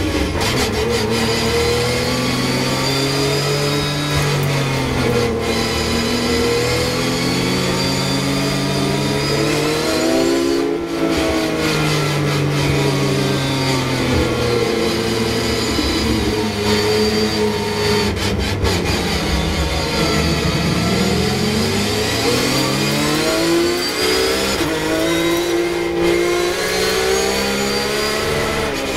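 Onboard sound of a Porsche 911 GT3 Cup race car's flat-six engine at racing speed. The revs climb and drop repeatedly with throttle, braking and gear changes, falling lowest about ten seconds in through a first-gear corner before climbing again.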